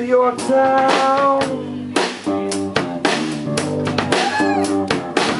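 Live rock band playing an instrumental passage: acoustic-electric guitar, electric bass and a drum kit, with steady drum hits through the chords.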